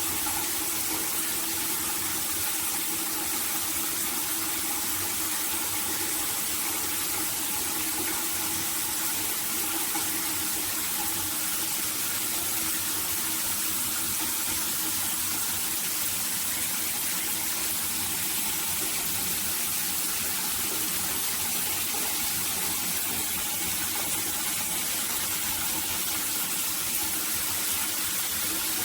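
Shower water spraying and splashing steadily, an even hiss that holds at one level throughout.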